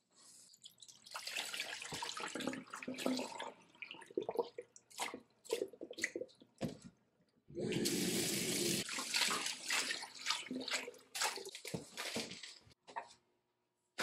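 Kitchen tap water running into a stainless steel bowl of mung bean sprouts in a sink, splashing irregularly as hands swish the sprouts about. A steady, louder gush of running water comes just past halfway.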